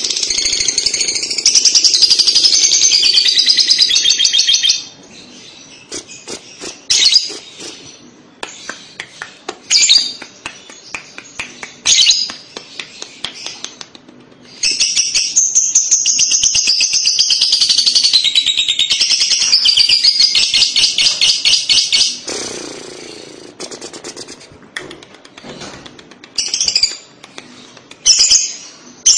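Fischer's lovebird singing its long 'ngekek' chatter: two long, rapid, high-pitched trills, the first about four seconds long right at the start and the second about seven and a half seconds long starting around halfway. Short chirps and clicks come between and after them.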